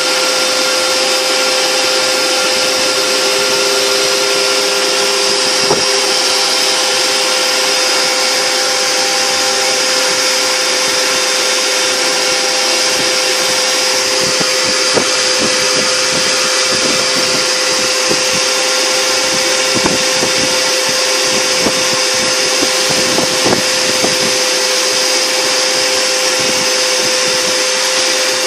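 Mini CNC router spindle running steadily with a whine while its end mill cuts a pocket in EVA foam, over the rushing suction of a vacuum hose at the cutter. Scattered small ticks of the bit cutting in the second half.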